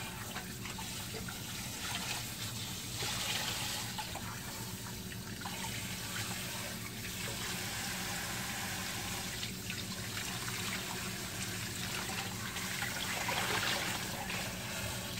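Tap water running into a stainless-steel kitchen sink while a pot and pan are scrubbed and rinsed by hand.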